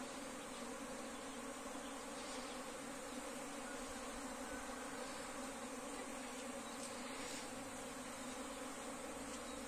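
A honeybee swarm in flight: thousands of bees' wings make a steady, dense hum. The colony has left its hive as a swarm.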